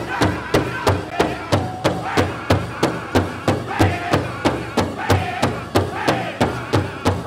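Powwow drum group playing a chicken dance song: a large powwow drum struck in unison with a fast, even beat of about three and a half strokes a second, and the singers' voices over it.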